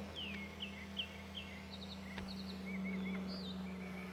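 Songbirds chirping and calling: short repeated chirps and quick downward-sliding notes, with a few looping calls about three seconds in, over a steady low hum.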